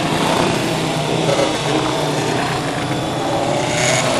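Steady mechanical drone with a low hum, like a motor running.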